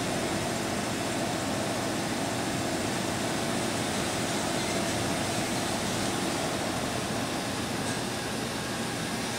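Steady running noise of a Kuraki KV-1000 three-axis vertical machining center while its table is jogged along the Y axis from the handheld pendant.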